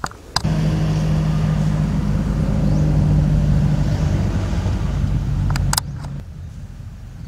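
An engine running steadily with an even, low hum. It cuts in abruptly about half a second in and stops suddenly just before six seconds, with sharp clicks at each cut.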